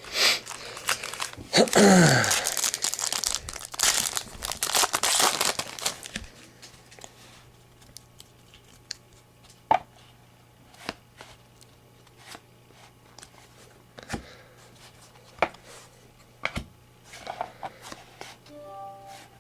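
A trading-card pack wrapper being torn open and crinkled for the first six seconds or so, then scattered soft clicks and taps as the cards are handled.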